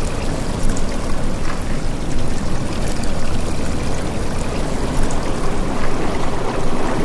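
Steady rush of flowing water from a stream, with no breaks or single splashes.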